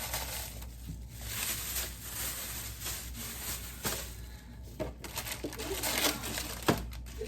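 Crinkling, rustling handling noise with scattered clicks and knocks, the sharpest near the end.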